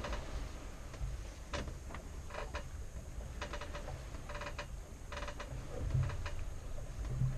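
A string of short mechanical squeaks, roughly one a second, from a sailboat's wheel steering as the helm is turned, over a low rumble of wind and water.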